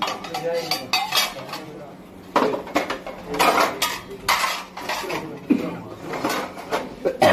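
Dishes and cutlery clattering and clinking in irregular sharp knocks.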